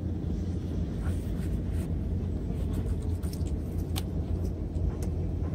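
A steady low rumble, with a few faint scattered ticks of a knife working on a plastic cutting board as a mullet is filleted.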